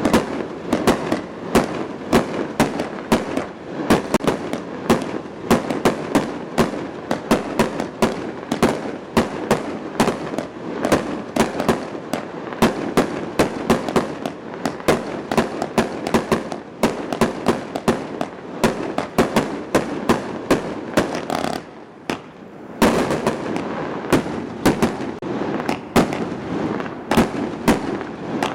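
Aerial fireworks going off in rapid succession: a dense string of sharp bangs and crackles, several a second, over a continuous rumble, with a lull of about a second roughly three-quarters of the way through before they start again.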